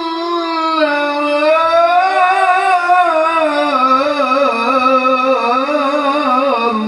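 A man's voice reciting the Quran in the melodic tilawah style through a handheld microphone, holding one long ornamented phrase on a single breath. From about halfway through it wavers in quick trills, and the pitch sinks gradually toward the end.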